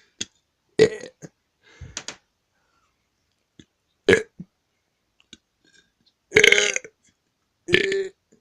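A boy burping again and again, about five separate burps with short pauses between them; the longest and loudest comes about six seconds in.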